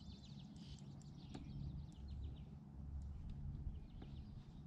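Faint bird chirps in several short bursts over a low, steady rumble.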